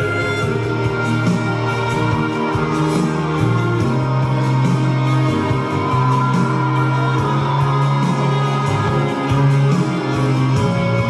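Live concert music: a band playing, with sustained notes over a steady bass line.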